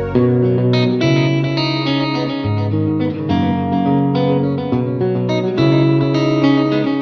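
Background music: a plucked electric guitar with effects playing a melody over a bass line.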